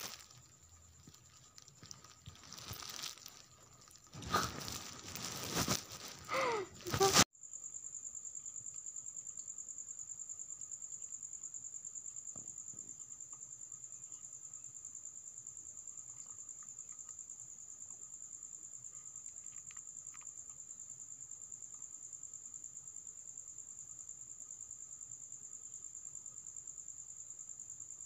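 Close rustling and handling noise for the first seven seconds or so, ending in a sharp knock. Then a steady, high, finely pulsing insect trill runs on alone.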